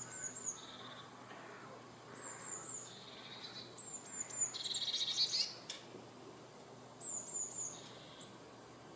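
Birdsong: a short, high phrase of three or four quick falling notes, repeated four times about every two seconds, with a buzzy trill about five seconds in.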